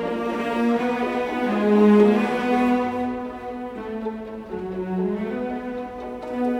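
Background music: a slow melody played on bowed strings, cello-like, with long held notes that change about every second.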